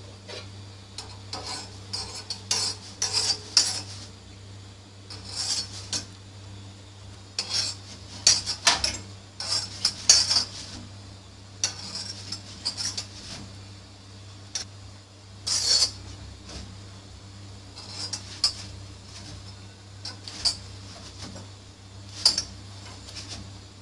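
Metal utensil scraping and clinking against an iron tawa as a flatbread is turned and pressed on it, in short irregular strokes every second or two, over a steady low hum.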